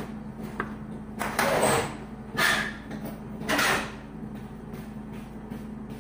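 Three short scraping rustles about a second apart as the side of a large cake pan is slid off a cheesecake, over a steady low hum.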